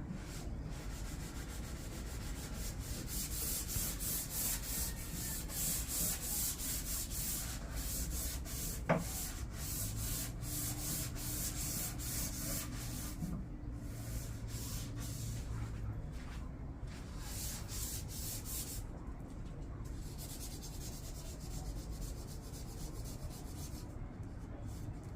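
Brush rubbing across a glass pane in many short strokes, spreading liquid masking tape; the strokes come thickest in the first several seconds, with a single sharp click about nine seconds in.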